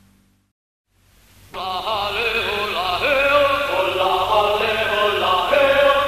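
Guitar music fades out into a moment of silence. About one and a half seconds in, a group of voices starts singing together, with wavering pitch.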